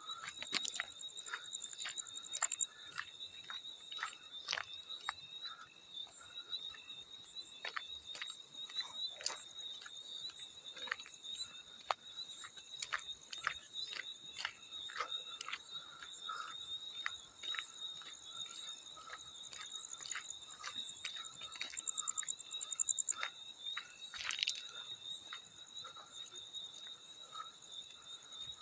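Field cricket chirping in a steady high trill, over frequent irregular small water splashes and drips, with one sharper splash near the end.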